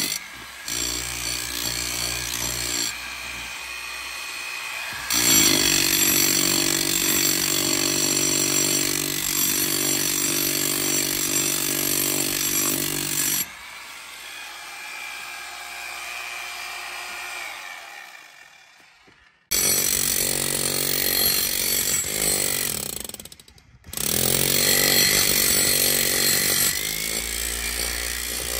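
A power tool running hard while making holes, in several stretches that cut in and out abruptly.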